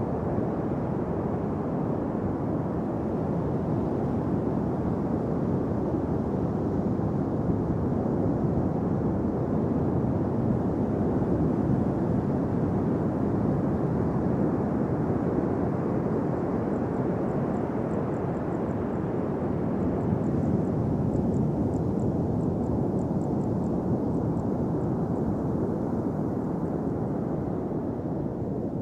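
Steady rushing of ocean surf breaking on a sand beach, with no engine or propeller tone in it.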